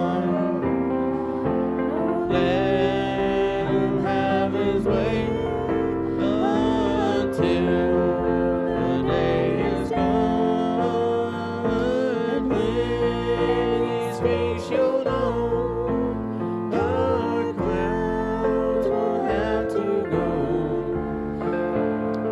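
Gospel church music: sustained chords and a bass line under a wavering melody line, playing without a break.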